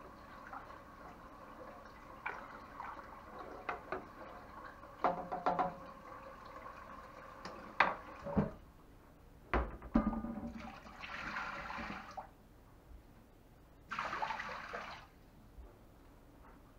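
A wooden spoon stirring and sloshing water in a metal pot. Several sharp knocks and clatters follow, about five to ten seconds in, then two separate bursts of hiss, each a second or so long.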